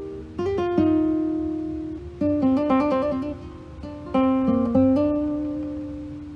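Acoustic guitar music: several strummed chords with short picked runs between them, the last chord ringing out and fading away.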